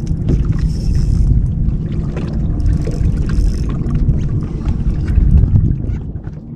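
Wind rumbling on the microphone and water washing against a bass boat's hull on choppy lake water, with two brief hissing splashes about half a second and about three seconds in.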